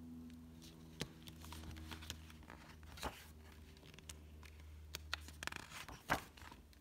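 A hardcover picture book being opened from its cover to the title page: faint paper rustling and a few light taps as the cover and pages are handled, the clearest just after a second in, at about three seconds and near the end.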